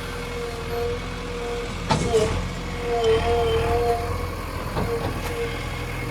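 Heavy diesel machinery engine running steadily, with a held, slightly wavering high tone over it and a sharp knock about two seconds in.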